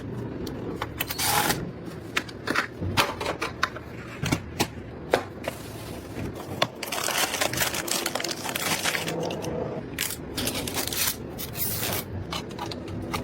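Hands working on computer parts: a string of sharp plastic and metal clicks and taps, with stretches of scraping and rustling.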